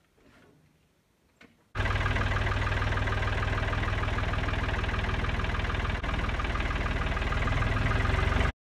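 Old farm tractor engine running steadily and loudly. It comes in suddenly about two seconds in and cuts off abruptly just before the end.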